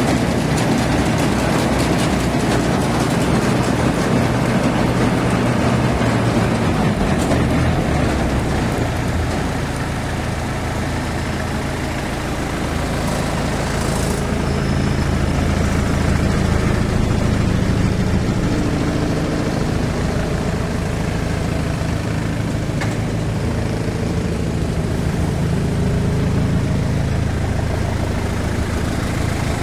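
Yanmar AW70V combine harvester's diesel engine running steadily, its low hum shifting a little in pitch now and then.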